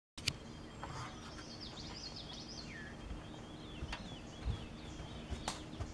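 Birds singing in woodland: quick chirps and twittering notes, one sliding downward, over a faint steady background hum. A sharp click right at the start and a couple of knocks later cut through.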